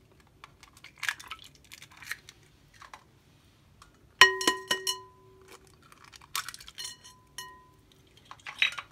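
Eggs cracked against the rim of a glass mixing bowl: three or four sharp taps about four seconds in, each leaving the glass ringing briefly. Crackling of eggshell being pulled apart comes before and after the taps.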